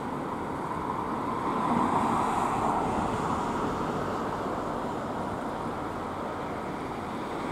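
Street traffic noise: car engines and tyres with a steady rumble that swells about two seconds in as a vehicle moves past close by. No siren is sounding.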